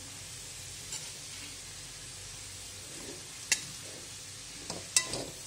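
Grated carrots frying in hot ghee in a kadhai, with a steady soft sizzle. A steel spoon stirs them and clinks sharply against the pan a few times, loudest about three and a half and five seconds in.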